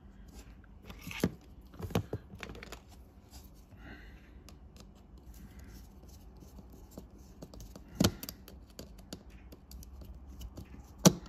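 Scattered small clicks, taps and light scraping from small screws and a screwdriver being handled at the workbench while a model train motor is put back together. Two sharper knocks stand out, about eight seconds in and just before the end.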